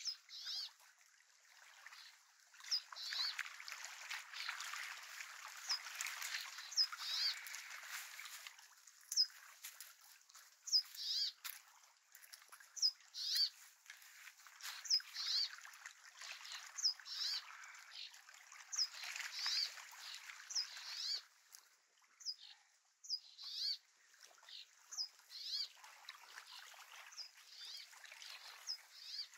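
A bird repeating a short, high call about every two seconds, over a steady background rush.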